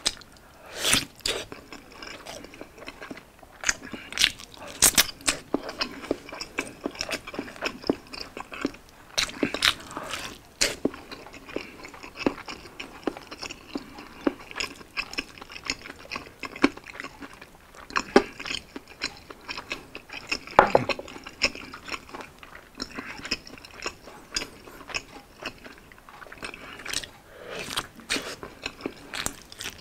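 Close-up eating sounds: a person biting into and chewing a slab of Spam luncheon meat, then eating a pickled side by hand, with sharp bites and crunches at irregular moments throughout.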